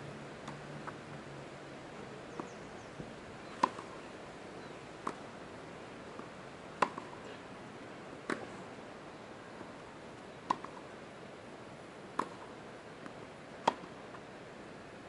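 A tennis ball knocking sharply on the court, one knock every second or two, over a steady background hiss, as a serve is being readied.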